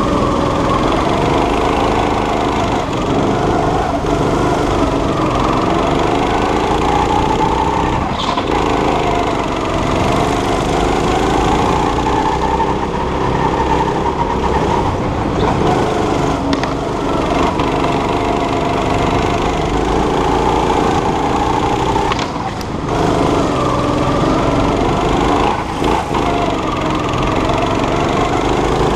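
Go-kart engine heard from on board, its revs rising and falling continuously as the kart is driven through corners. Twice near the end the revs drop briefly as the throttle is lifted.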